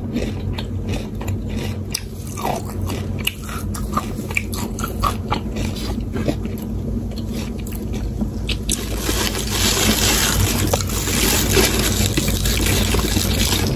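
Close-miked chewing of crisp potato chips, a run of sharp crunches and mouth sounds. From about nine seconds in, a denser crackling rustle as a rubber-gloved hand picks chips out of a pile.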